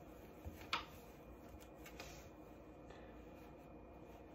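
Faint rustle of a cotton hoodie being pulled on over the head, with a couple of light taps in the first second.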